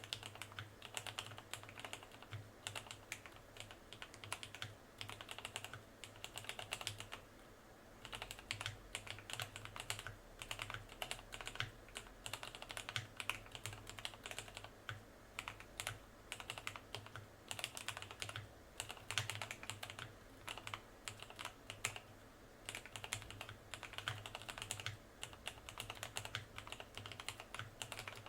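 Typing on a Cherry G80-3000 mechanical keyboard modded with lubed, filmed Cherry MX Black linear switches, dampening foam, no plate and PBT double-shot keycaps: a steady run of keystroke clacks. The typing pauses briefly about seven seconds in and again about twenty-one seconds in.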